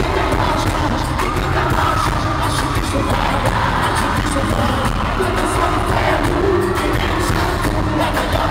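Live band music at a concert with a heavy, steady bass, and the audience singing along and cheering.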